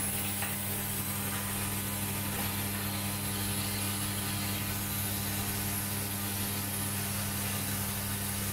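Vibratory sorting bowl feeders on an automatic micro pump assembly machine running with a steady, even hum, and a constant hiss above it.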